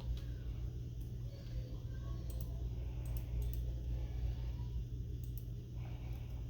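Scattered clicks, like a computer keyboard and mouse being used, a few irregular taps spread across several seconds over a steady low hum.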